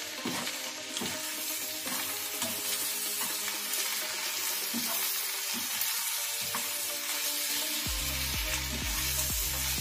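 Sliced ivy gourd and onions sizzling in a non-stick wok while a spatula stirs and scrapes through them. Background music plays, and its beat comes in near the end.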